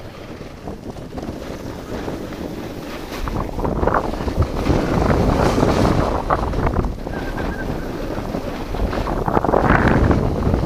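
Wind buffeting the microphone while riding a snowboard downhill, mixed with the rush of the board sliding over packed snow. It swells about four seconds in and again near the end.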